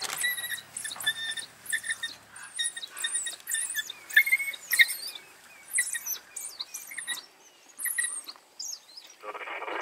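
African wild dogs twittering: many rapid, high-pitched chirps and squeals, one after another, as the pack jostles over pieces of a fresh kill.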